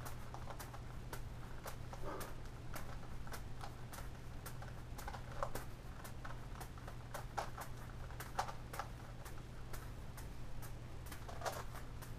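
A steady run of light clicks and taps, about three a second with a few louder ones, from juggling balls being caught in the hands and a Gigaminx twisty puzzle's layers being turned, over a constant low hum.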